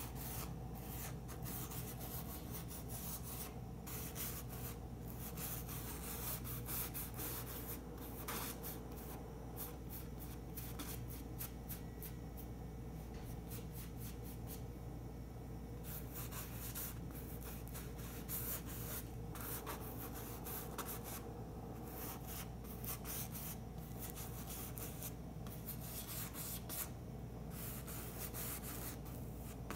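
Paintbrush rubbing and dabbing thick paint onto a textured canvas: a run of short brushing strokes with brief pauses, over a low steady hum.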